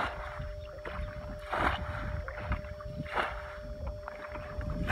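Muddy water splashing as a bucket scoops and throws water out of a shallow pit, one splash about every second and a half.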